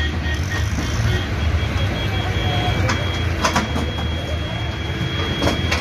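Steady low rumble of idling engines, with a few short knocks about halfway and near the end and a thin high steady tone from about halfway on.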